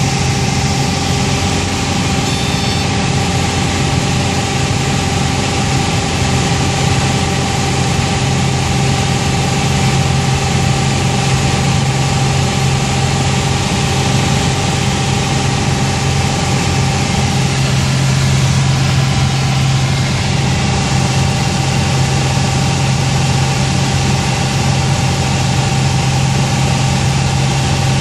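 Piper Saratoga's six-cylinder Lycoming piston engine and propeller droning steadily in flight, heard from inside the cabin over the rush of airflow.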